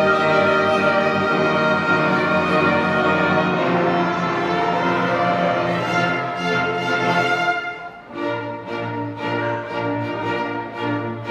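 Acoustic ensemble playing a hymn, with a sustained melody over chords. About eight seconds in the music drops to a quieter, rhythmic accompaniment.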